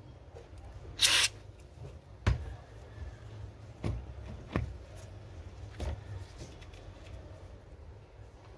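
One short hiss of aerosol lubricant sprayed through a straw nozzle into a shopping-trolley wheel's hub, about a second in. A few light knocks follow as the greased wheel is handled and turned.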